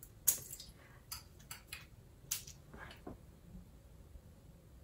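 A string of light clicks and taps from a glass perfume bottle and its cap being handled. The first click is the loudest, followed by several fainter ones over the next few seconds.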